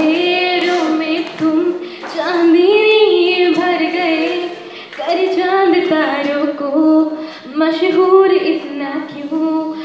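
Two women singing a melody into microphones, in long held phrases with short breaks between them.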